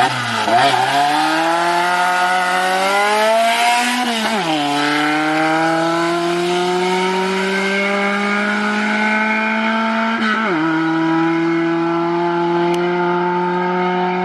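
Car engine accelerating under load through the gears: the revs climb, then fall sharply at a gear change about four and a half seconds in, climb slowly again, and fall at another gear change near the end.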